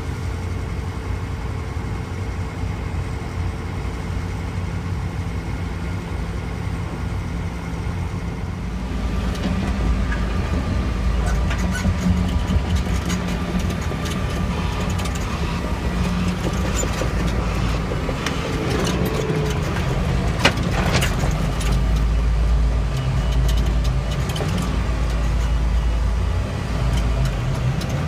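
Heavy road-building machinery running: the steady low diesel rumble of an asphalt paver and a tandem road roller laying tarmac. The sound grows fuller about nine seconds in, and there is one sharp knock about twenty seconds in.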